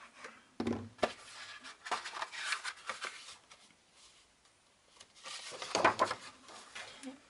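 Paper handling: kraft cardstock pages and an envelope rustling and sliding over a cutting mat, with a couple of knocks about a second in as a plastic glue bottle is set down, and a louder bout of rustling near the end.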